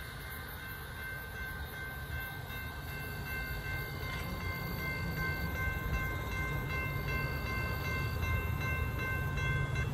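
Railroad grade-crossing warning bell ringing as a steady, high, multi-toned sound while the signals flash, stopping just before the end as the gate arm rises. A low rumble runs underneath, growing slowly louder.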